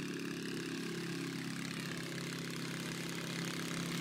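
Ultralight aircraft's engine and propeller idling steadily, with a brief dip in pitch about a second in.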